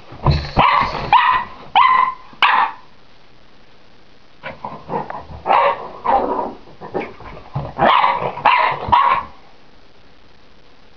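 Jack Russell terrier puppy barking excitedly in short sharp yaps: a quick volley of about five in the first few seconds, then a longer run of barks in the middle, stopping a couple of seconds before the end.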